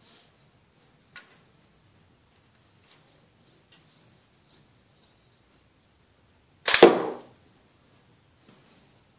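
A homemade longbow made from a wooden bed slat is loosed once about seven seconds in: a single loud, sharp string snap as the arrow leaves, ringing out briefly. Faint small clicks come before it.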